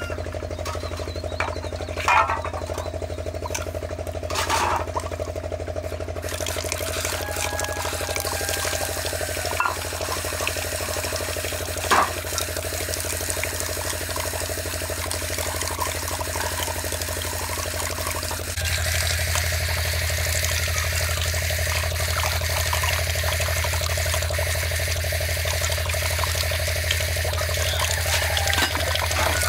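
Water running and splashing from an outdoor tap onto a concrete drain while metal bowls and plates are rinsed, with a few sharp metal clinks of the dishes in the first half. The splashing gets louder about two-thirds of the way through as water is poured through a bowl.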